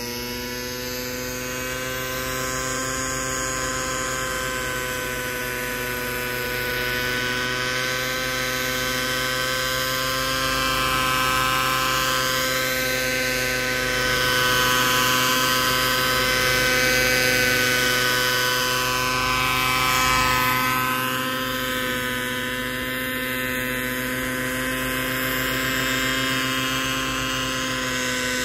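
Kyosho Concept 30 SR-X radio-controlled helicopter's two-stroke glow engine and rotor running at a steady pitch as it hovers and flies low. The loudness swells and eases a little as the helicopter moves about.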